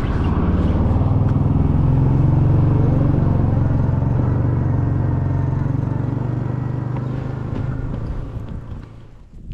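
A motor vehicle's engine running. Its pitch rises about two seconds in as it pulls away, and the sound fades steadily near the end as it moves off.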